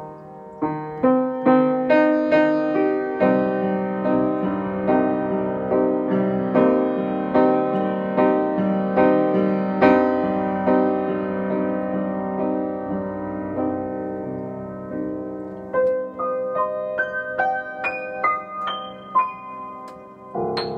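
Upright piano improvising on only the notes C, E flat and G, the C minor triad, in a steady run of broken-chord notes. Toward the end, single notes climb higher step by step, and a loud chord is struck just before the end.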